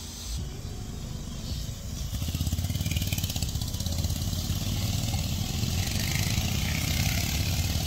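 A group of motorcycles riding past one after another round a bend, their engines running with a low, even pulse that grows louder about two seconds in as the bikes draw near.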